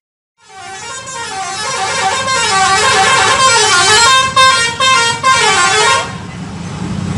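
Bus 'telolet' musical horn playing a melody of several pitched horn notes at once, gliding up and down repeatedly for about five and a half seconds. It stops about six seconds in, leaving the low running of the engine and traffic noise.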